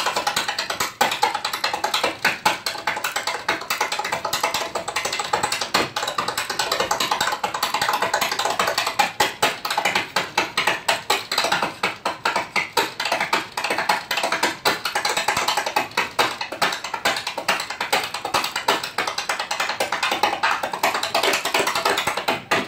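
Tap shoes striking a wooden stage floor in a fast, unbroken stream of rhythmic taps, with many accented heavier strikes.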